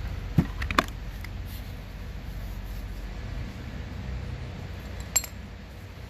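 Small hard clicks and knocks from plastic center-console trim being handled and pried apart. Several come close together in the first second and a half, and a single sharp, briefly ringing clink comes near the end.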